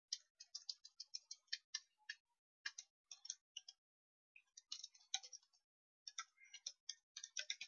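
Computer keyboard typing: quick runs of faint key clicks, with a pause of about a second midway.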